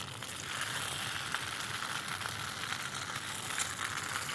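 Shrimp-paste rice rolls sizzling as they pan-fry in a little oil, a steady hiss with occasional small pops that grows a little stronger about half a second in.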